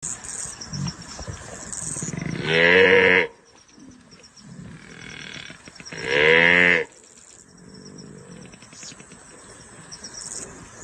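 An animal's loud calls, twice, each about a second long, over a faint high chirring.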